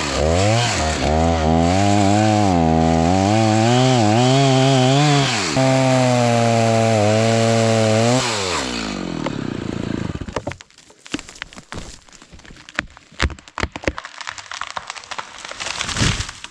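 Chainsaw on an Alaska chainsaw mill running at high revs, its pitch rising and dipping as it works through the log. Its engine then winds down and stops about eight seconds in. Irregular clicks and knocks follow.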